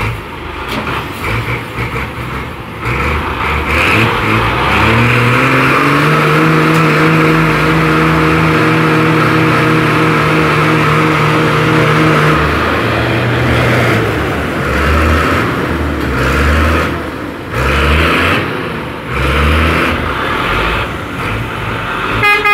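Belarus 510 tractor's diesel engine revving up and held at high revs under heavy load, straining to tow a stuck, stone-loaded dumper truck while its rear wheels spin in the dirt. The revs drop about halfway through, then rise and fall again and again.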